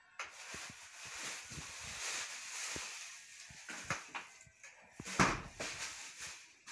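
A cat and a small dog tussling on a cloth-covered couch: rustling and scuffling of the fabric, with scattered knocks and a thump about five seconds in.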